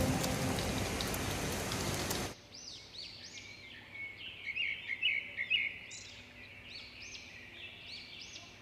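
A steady rain-like hiss that cuts off suddenly about two seconds in, followed by small birds chirping: quick, repeated high arching calls, the loudest near the middle.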